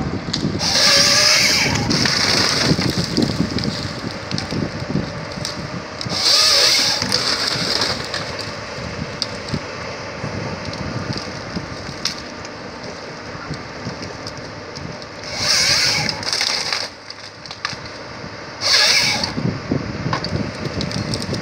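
Tracked forestry harvester processing conifer stems: the diesel and hydraulics run steadily while the head feeds the trunk through and branches crack and splinter off it. Four times the head's chain saw cuts through the log, each cut a high whine lasting one to two seconds.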